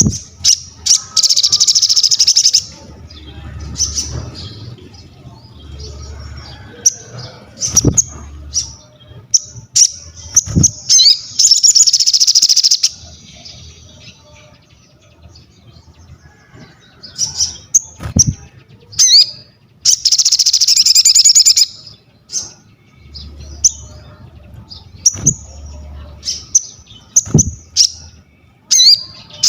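A sogon songbird singing vigorously: loud, dense bursts of high chattering song about two seconds long, three times, with short sharp chirps in between. A few dull thumps are also heard.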